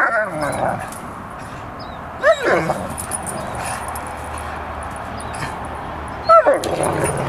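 Great Dane making short whining yelps while play-wrestling: one cry about two seconds in and another near the end, each rising and falling in pitch.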